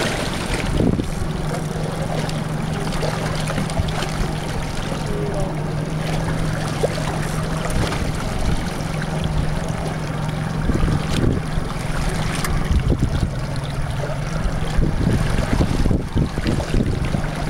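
A boat's engine running with a steady low hum, with wind noise on the microphone and the sound of the sea.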